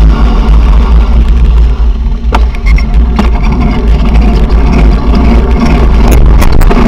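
Wind rumbling over a bicycle-mounted camera's microphone while riding in traffic, with the noise of cars and buses alongside. A few sharp clicks and rattles near the end.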